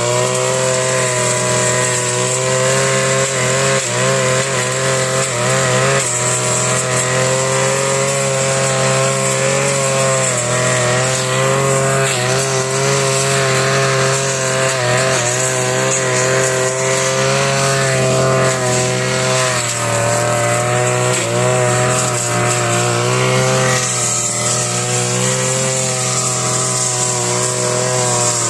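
Grass-cutting machine's small engine running continuously, its speed wavering slightly up and down.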